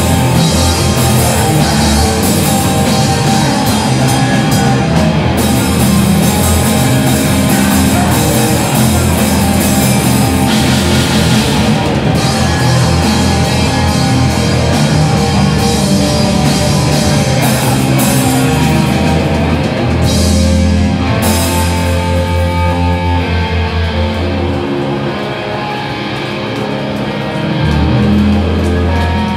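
Live rock band playing loud and heavy: electric guitars over a steady drum kit. About three-quarters of the way through the cymbals drop away and the guitars carry on ringing, with a brief dip in loudness near the end.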